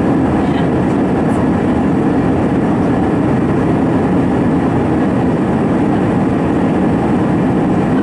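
Steady cabin noise of an Airbus A320 in flight, heard inside the passenger cabin: the CFM56 turbofan engines and rushing airflow blend into an even, deep rush with no breaks.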